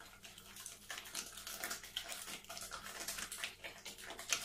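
Spoon or whisk stirring a thick almond, butter and egg filling in a mixing bowl by hand: quick, irregular wet scraping and clicking against the bowl, with a sharper knock near the end.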